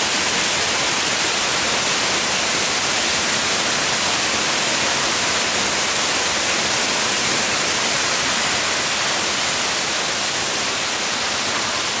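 Small waterfall splashing down stepped rock ledges: a steady, unbroken rush of falling water.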